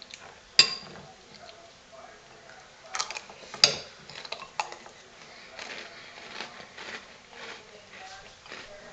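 A metal spoon clinks sharply against a cereal bowl twice, about three seconds apart, with smaller scrapes and clicks in between. Then Reese's Puffs cereal is chewed with a crunch, about two bites a second.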